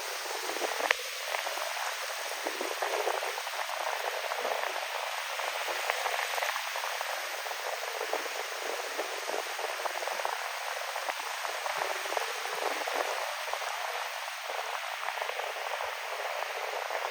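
Sea waves washing onto a beach in wind: a steady hiss of surf and fizzing foam, with one sharp click about a second in.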